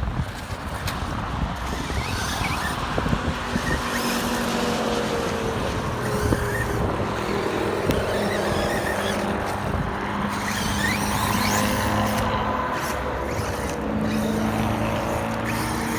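Brushless electric motors of RC monster trucks whining, rising and falling in pitch as they accelerate and let off, over steady tyre and ground noise, with a few sharp knocks.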